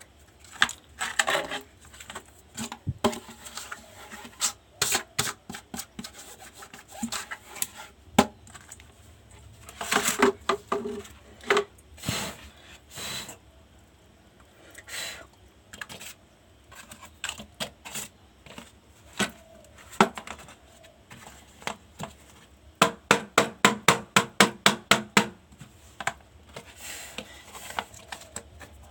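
Hands and tools handling the parts of an induction cooktop during repair: scattered clicks, knocks and rubbing, with a quick run of about a dozen even clicks a little before the end.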